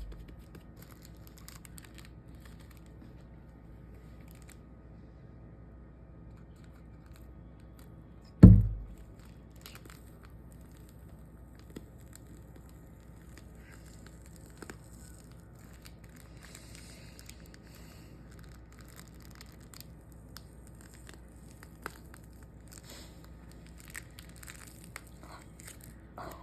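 Faint scattered crackling and crinkling as slime and its container are handled, with one heavy, deep thump about eight seconds in.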